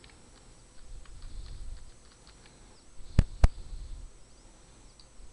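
Computer keyboard and mouse clicks while editing text: a few faint taps, then two sharp clicks about a quarter second apart just after three seconds in.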